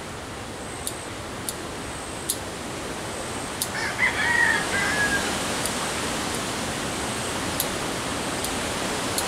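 Pruning shears snipping bonsai branches, sharp single clicks spaced a second or two apart over a steady hiss. A rooster crows briefly about four seconds in, the loudest sound.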